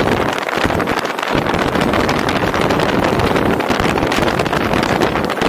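Car driving along a road: steady wind noise on the camera's microphone over tyre and road rumble. The low rumble grows heavier about a second in.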